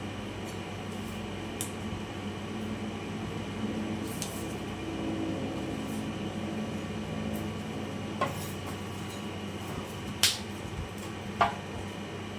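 Kitchenware being handled during vegetable preparation: a few short sharp clinks and knocks, the loudest about ten seconds in and another a second later, over a steady low hum.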